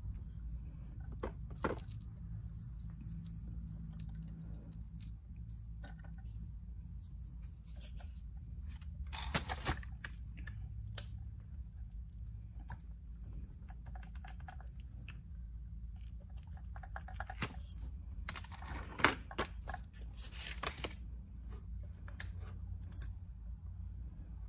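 Hands handling a small two-stroke engine's cylinder and crankcase: light metal clicks and rustling as the cylinder is worked down over the piston and lined up with the wrist pin. There are two louder scraping stretches, one about ten seconds in and one near nineteen to twenty-one seconds. A steady low hum runs underneath.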